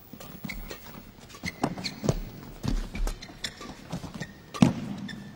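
Badminton rally: rackets striking the shuttlecock and players' feet hitting the court, heard as a quick, uneven run of sharp knocks, the loudest about four and a half seconds in.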